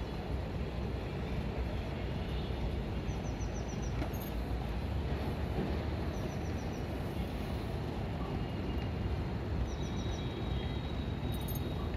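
Steady low outdoor rumble with no distinct machine in it. A small bird's quick high chirping trill breaks in three times over it.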